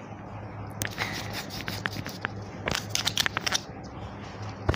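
Light clicking and crackling handling noise from a small hollow plastic ball turned in the hands close to the face, in clusters about a second in and around three seconds in, over a steady low hum.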